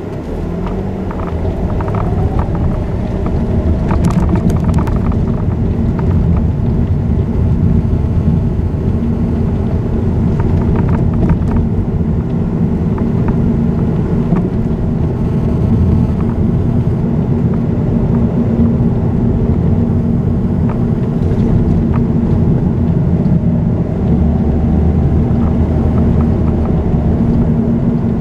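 Car engine and tyre noise heard from inside the cabin while driving at steady speed: a continuous low rumble with a constant hum.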